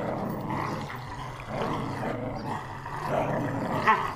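Growling and snarling of creatures scuffling, a radio-drama fight sound effect; it cuts off suddenly at the end.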